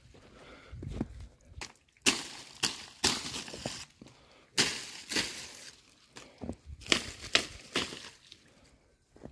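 Footsteps crunching in fresh snow, a crisp crunch every half second to a second with short pauses between runs of steps.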